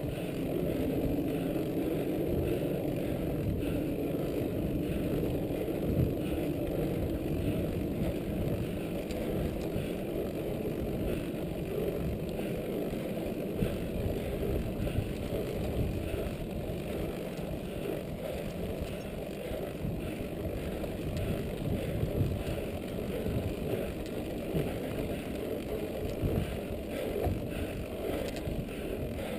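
Mountain bike rolling along a dirt track: a steady rolling noise with frequent small knocks and rattles as the bike goes over the bumps.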